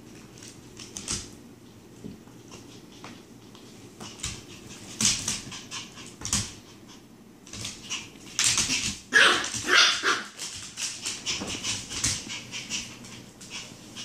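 A puppy and an adult dog playing on a hardwood floor: claws click and skitter, with a burst of high yapping and whining a little past halfway.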